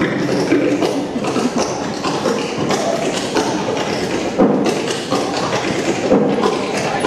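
Busy dining-room din: a murmur of background voices with frequent sharp taps and knocks.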